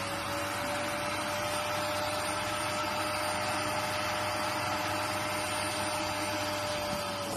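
Vacuum cleaner running steadily, its nozzle held against a pet's fur, with a constant motor whine over a rushing hiss; the whine drops slightly in pitch near the end.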